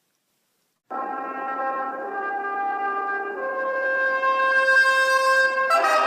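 Silence for about a second, then brass music: sustained chords held for seconds at a time, shifting to new chords twice and growing louder toward the end.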